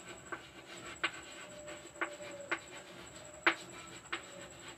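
Faint writing: a pen or marker scratching and tapping on a writing surface, with a handful of short sharp taps, the strongest about three and a half seconds in.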